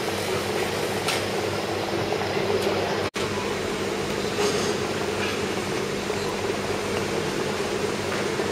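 Steady ventilation hum and room noise of a large airport terminal hall. The sound cuts out for an instant about three seconds in.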